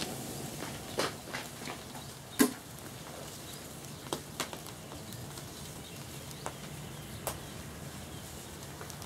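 Panasonic Quintrix CRT television burning after its heating-element discharge: a steady low fire noise with scattered sharp crackles and pops at irregular intervals, the loudest about two and a half seconds in.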